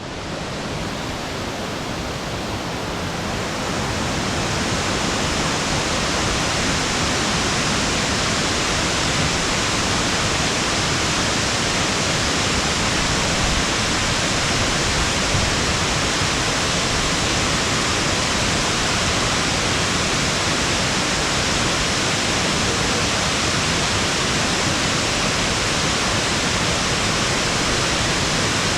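Waterfall: a loud, steady, even rush of falling water. It swells in over the first few seconds, then holds constant.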